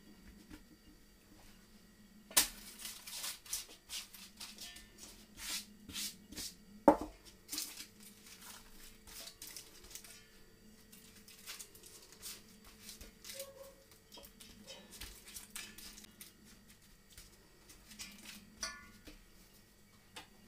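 Hands pressing a thin sheet of dough into a round metal baking tin lined with baking paper: irregular rustling and crinkling of the paper, with two sharp knocks of the tin about two and seven seconds in.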